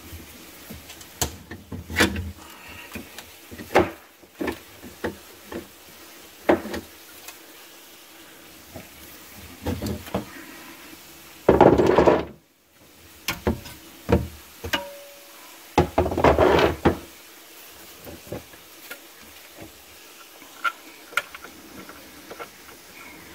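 Hand tools and metal parts knocking and clinking during hands-on engine-mount work, irregular and scattered, with two louder noisy bursts of about a second each around the middle.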